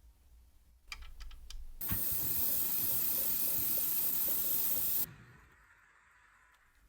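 A few short clicks, then a spray nozzle hissing steadily for about three seconds, starting and cutting off sharply.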